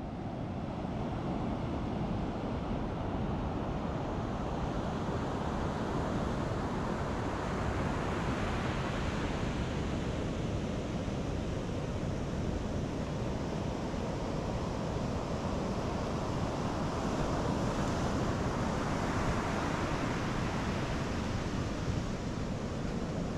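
Ocean waves washing on a sandy beach, with wind rumbling on the microphone. The surf swells twice, about a third of the way in and again near the end.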